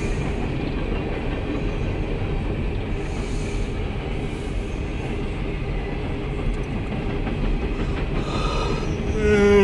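CSX empty coal train rolling past on the rails, a steady loud rumble. Near the end a louder tone slides down in pitch.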